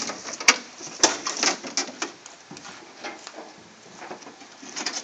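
Two sharp knocks about half a second apart, then lighter clicks and rattles of a glass windshield panel being handled against a vehicle's metal cab frame.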